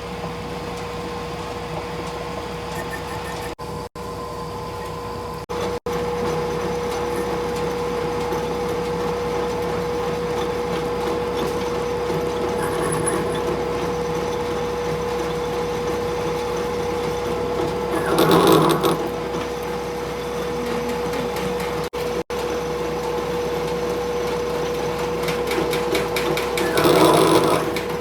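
A workshop machine's motor running with a steady hum, with two louder rasping bursts, about two thirds of the way in and again near the end.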